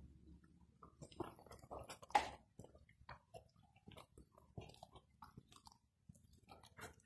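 A dog chewing and gnawing: faint, irregular crunching clicks, one louder crunch about two seconds in.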